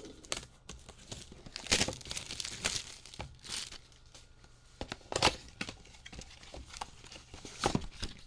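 Packaging of a Topps Holiday Mega box of trading cards being torn open and crinkled: irregular rustling with sharper rips and crackles about two, five and eight seconds in.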